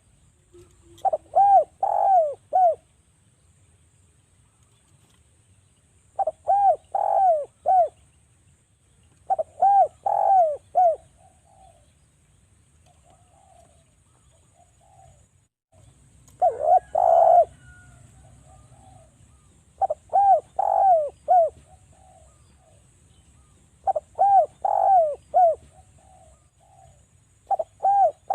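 Spotted dove (derkuku) cooing in repeated phrases of three or four short, arched coos, a phrase every three to four seconds, with a longer pause near the middle. It is a recorded call played as a lure to set other derkuku singing.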